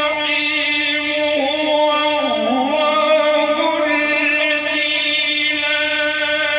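A man reciting the Quran in the melodic tajweed style into a microphone, holding one long steady note, with a wavering ornamented run about two seconds in before settling back onto the held pitch.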